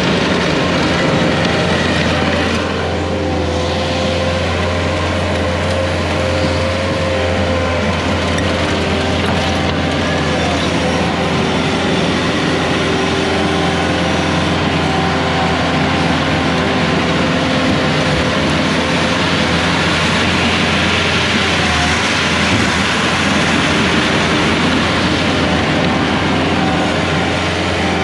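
Diesel engine of heavy construction equipment running steadily under work, a constant low drone with a few held tones above it.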